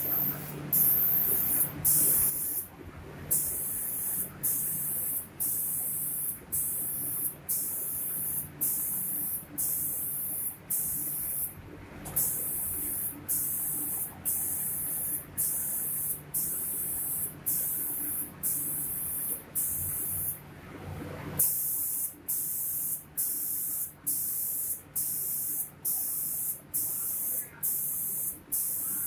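Automatic spray gun of a cabinet-door painting machine spraying in repeated hissing bursts, cut off briefly about once a second as it passes over the doors, with a few longer pauses. A steady low machine hum runs underneath.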